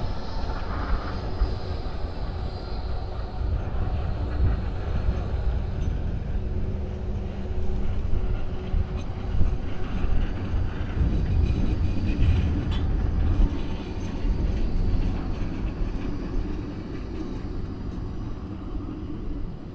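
Bombardier Primove battery-powered low-floor tram running past on its rails: a low rumble of wheels and running gear that grows louder about halfway through as it passes close, then fades near the end.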